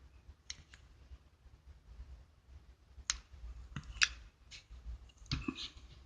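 Scattered light clicks and taps in a quiet room: two early on, several more from about three seconds in, the sharpest about four seconds in, and a short cluster near the end.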